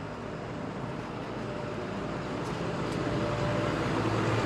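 Road traffic: a vehicle's engine and tyre noise growing gradually louder as it approaches.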